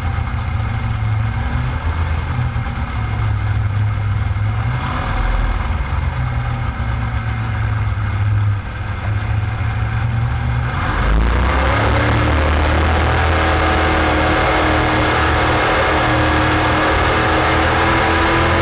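Racing jet boat's engine heard from onboard, running at low throttle with a deep rumble. About eleven seconds in it opens up and its pitch climbs steadily as the boat accelerates.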